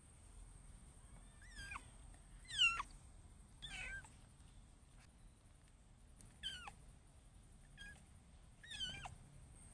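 Newborn kitten mewing: about six short, high-pitched cries, each falling in pitch, the loudest about two and a half seconds in.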